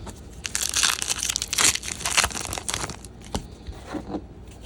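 Packaging being handled and torn open: a run of crinkling and tearing, then a single sharp click a little after three seconds and quieter rustling.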